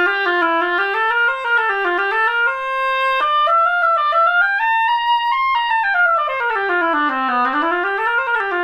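Oboe played on a hand-scraped cane reed: one continuous legato phrase of stepped notes that climbs to its highest about five seconds in, dips to its lowest near the end and comes back to the opening note. The reed has a nice sound but has lost some response, and its C naturals and Fs are jumping sharp.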